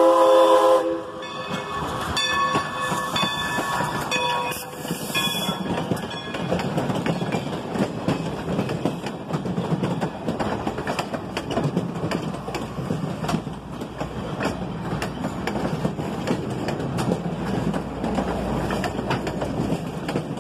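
The chime steam whistle of a 1925 Baldwin 2-8-0 steam locomotive sounds a loud chord that cuts off about a second in; the uploader guesses it is a Crosby whistle. A bell then rings for a few seconds. After that the train's passenger cars roll past close by, their wheels clattering steadily over the rail joints with a low rumble underneath.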